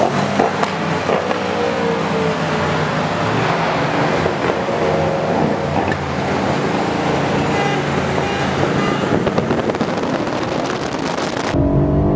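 Highway driving heard from a moving car with the window open: a loud, steady rush of wind and road noise, with the engines of sport motorcycles and a sports car pacing alongside humming underneath. Near the end it cuts to a steadier in-cabin engine drone.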